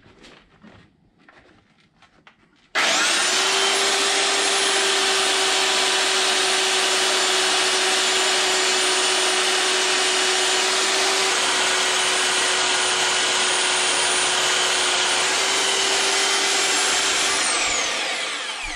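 Handheld belt sander switched on about three seconds in, running steadily as it sands the head of a turned ash mallet, then switched off near the end and winding down.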